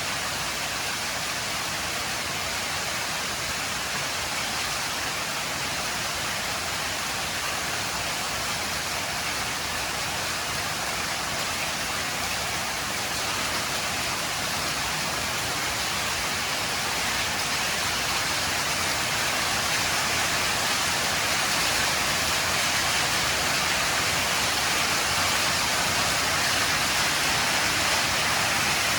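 Heavy rain falling in a steady downpour, growing louder about halfway through and staying at that level.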